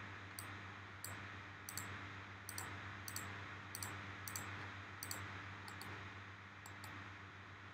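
Faint computer mouse clicks, a dozen or so spaced irregularly about half a second apart, over a low steady hum.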